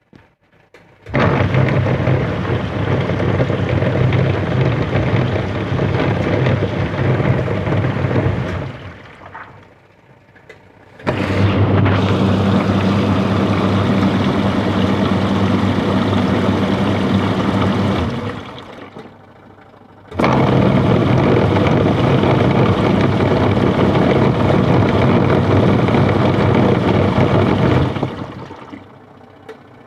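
Washing machine motor turning a worn gearbox, running with a rough, harsh grinding hum in three spells of about seven seconds with short pauses between. The roughness comes from the gearbox being worn out.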